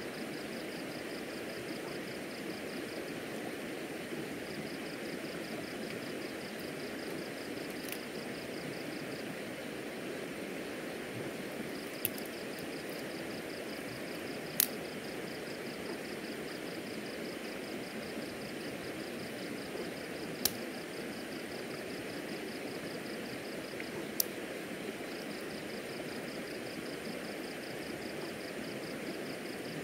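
River water flowing steadily, with a high, rapid chirping that comes and goes in long stretches. Five short sharp clicks stand out, the loudest about halfway through.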